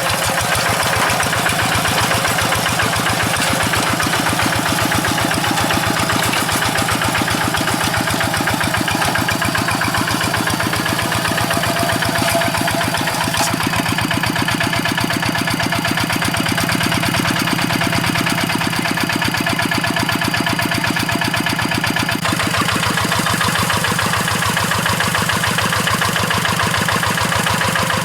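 Kubota RD85Di2S single-cylinder diesel engine of a hand tractor running steadily with a rapid, even knock of firing strokes; its tone shifts slightly about three-quarters of the way through.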